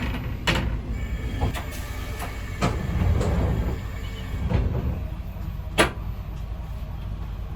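Ex-JNR KiHa 205 diesel railcar heard from on board: a steady low rumble, broken by several sharp metallic clanks at irregular intervals, the loudest about six seconds in.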